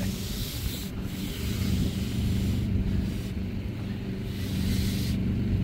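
A small engine running steadily at a constant speed, with a faint hiss that comes and goes over it.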